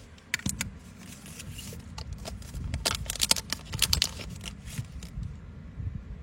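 Quick clicks and metallic rattles of a wristwatch being handled, its bracelet and case knocking and jingling, densest about three to four seconds in.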